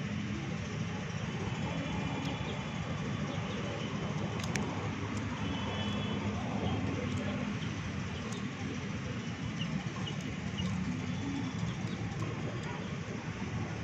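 Steady low outdoor background rumble, like distant traffic, with a few faint sharp clicks and faint short high chirps scattered through it.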